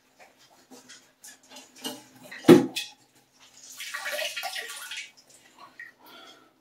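A couple of sharp knocks, then about a second and a half of water splashing and dripping as the last water is sopped out of a drained toilet tank with a rag.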